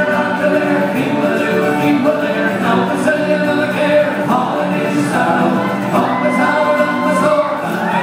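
Irish folk band playing live on acoustic guitars, banjo and bass, with several male voices singing together over the strummed accompaniment.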